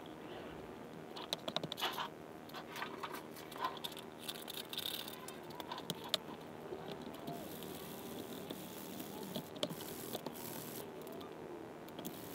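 Faint handling noise from working masking tape on a guitar neck: scattered small clicks, taps and crinkles, busiest in the first half.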